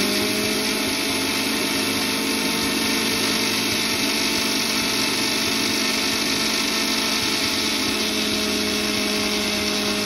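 Electric mixer grinder running steadily at full speed, dry-grinding poppy seeds in its stainless steel jar: a constant high motor whine.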